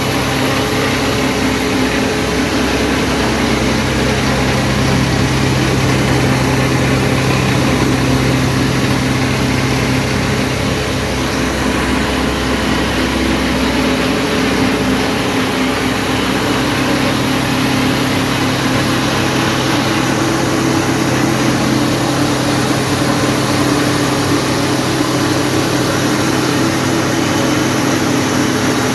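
Wheat grain grading and cleaning machine running steadily: a constant motor hum under a dense, even hiss. The deepest rumble eases about halfway through.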